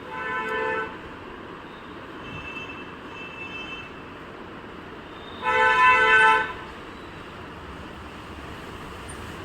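Vehicle horns honking: a short toot near the start and a louder, longer one of about a second past the middle, with two fainter, higher-pitched toots in between, over steady background traffic noise.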